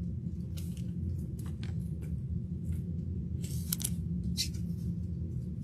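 Trading card and rigid plastic top loader being handled: a few short, scattered scrapes and clicks over a steady low hum.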